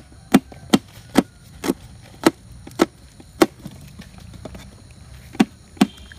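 Knife chopping green chillies on a metal plate: about ten sharp knocks of the blade striking the plate, roughly two a second, with a pause of about two seconds past the middle before two more.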